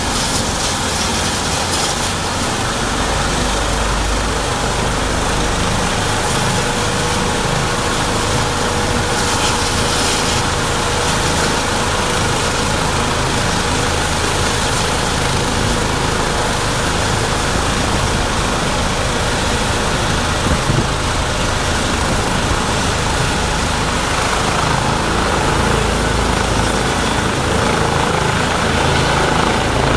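Eurocopter EC135 twin-turbine rescue helicopter running on the ground with its main rotor turning, building power for take-off. A steady, loud turbine and rotor noise, with a high turbine whine that rises slightly and grows louder toward the end.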